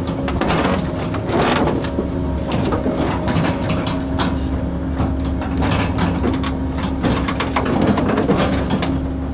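Excavator running with a steady hum while it crushes the sheet-metal body of a 1971 Chevrolet C20 pickup, giving repeated irregular crunches and scrapes of bending metal.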